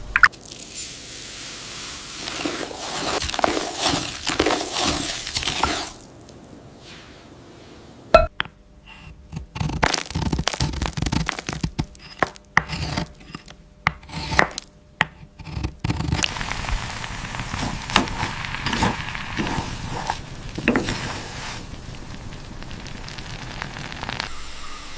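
Scraping and knocking of utensils against cookware, with a run of sharp separate clatters through the middle.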